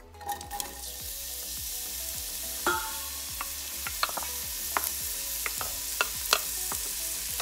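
Freshly chopped onion sizzling as it hits hot oil in a stainless steel pot, a steady hiss that starts just after the onion goes in. Sharp taps of a wooden spoon scraping the last pieces out of a ceramic bowl come in from a few seconds in.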